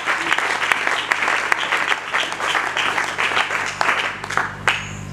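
Congregation applauding in answer to the preacher's call to acclaim the word of the Lord. The clapping dies away about four and a half seconds in.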